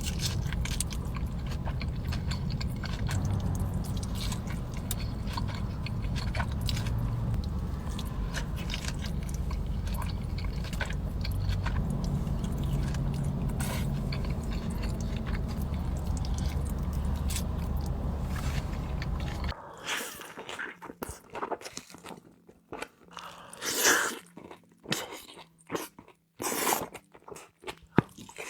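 Close-miked eating of In-N-Out food: biting, chewing and crunching. For about the first two-thirds it sits over a steady low hum; after that it switches to a quieter, crisper clip with louder single bites and crunches.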